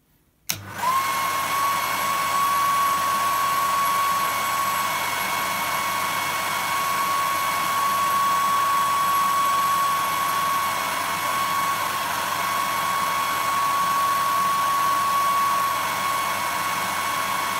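Hair dryer switched on about half a second in, then running steadily with a constant high whine over its rushing air. It is the overload drawing current through a 6 A circuit breaker that has not yet tripped.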